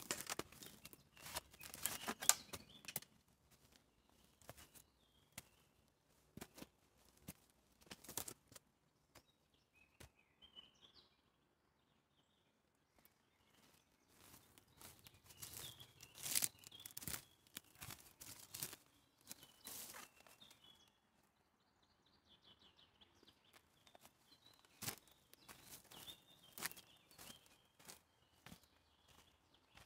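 Footsteps on a dry forest path of dirt, needles and twigs, coming in several bursts of steps, with a few faint bird chirps in the pauses.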